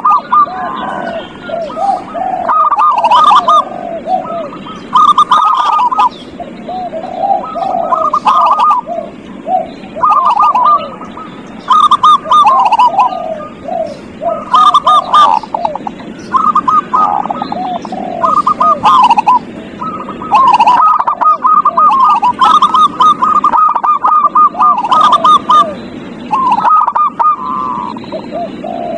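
Zebra doves (perkutut) singing: loud, rapid bubbling coo phrases that repeat every second or two and at times overlap, with short high chirps among them.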